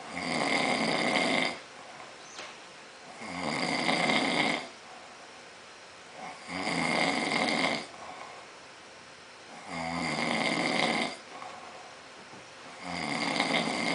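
A man snoring in his sleep, a tremendous snore: one long snore roughly every three seconds, five in all.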